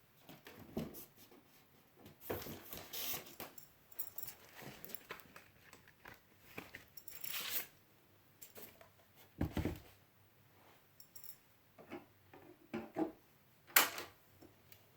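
Irregular rustling, scraping and clicks from packaging and record items being handled, with a dull knock about two-thirds of the way through and a sharp click near the end.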